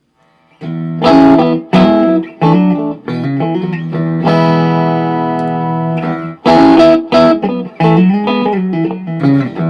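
Electric guitar with vintage single-coil Strat pickups played clean through a Sebago Double Trouble 25-watt 1x12 combo amp with reverb. Chords and short note phrases start about half a second in, with a long ringing chord in the middle. The playing compares the amp's rock preamp switch off and on, the setting that makes the tone thicker and fatter in the mid-range.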